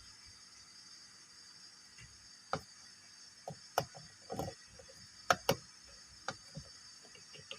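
Small plastic toy kitchen pieces handled, tapping and clicking against each other: about a dozen separate sharp clicks starting about two seconds in, with a short rattling cluster near the middle and the two loudest clicks a little after halfway.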